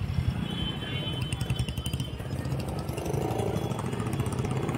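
Street traffic noise with motorcycle engines running, and music playing faintly in the background.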